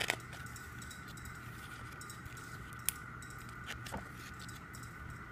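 Pages of a glossy CD photo booklet being handled and turned: a few faint paper rustles and sharp little clicks, one page turning about four seconds in, over a steady faint high hum.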